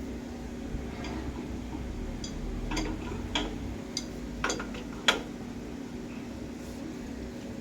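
Light metallic clinks, about one every half second for a few seconds, as an adjustable wrench grips and turns a faucet clockwise to tighten it back onto its threads.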